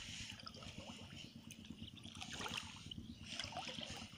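Water trickling and sloshing faintly as a fine monofilament gill net is pulled hand over hand out of shallow water, with a few small splashes.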